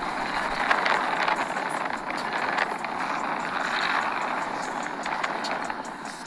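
Steady rushing road and wind noise of a car driving along a street.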